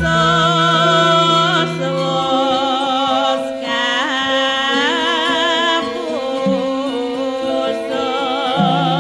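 Javanese gamelan ensemble playing a gending: steady ringing metallophone tones under a female singer's wavering, ornamented vocal line.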